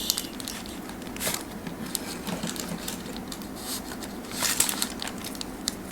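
Light rustling and small clicks of food and its paper packaging being handled, with a louder rustle about four and a half seconds in.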